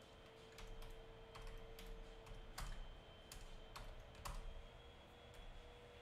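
Typing on a computer keyboard: about ten irregular keystrokes, most of them in the first four seconds or so, then the typing stops.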